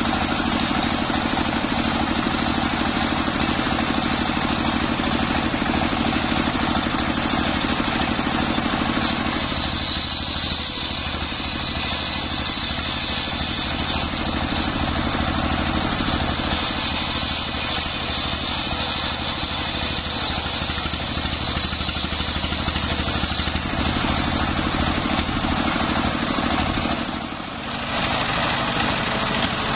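Single-cylinder diesel engine running steadily under load, driving a circular saw blade that rips lengthwise through a long waru log. A high whine of the blade cutting comes in about nine seconds in and holds through the middle, easing off after about twenty-three seconds. There is a short drop in level near the end.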